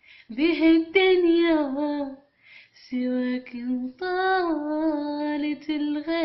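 A woman singing unaccompanied, with no effects on the voice, in ornamented, wavering phrases of a rai song. There is a short break a little after two seconds in before the next phrase.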